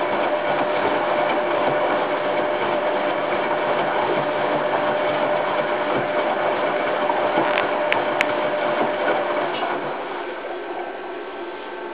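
Hoover Time Manager H130E washing machine running its rinse, the motor and drum making a steady mechanical noise with a steady whine. The whine stops about nine seconds in and the noise dies down.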